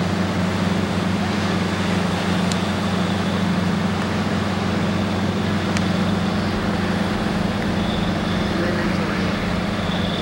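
Steady, unbroken roar of surf and wind, with a constant low hum underneath.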